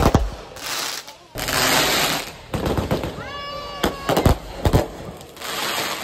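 Street fireworks going off overhead: a sharp bang at the start, long stretches of crackling hiss from the bursting shells, and a quick run of three bangs about four seconds in.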